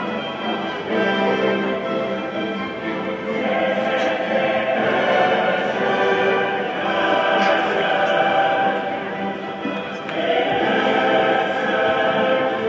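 Choral music: a choir singing long held chords.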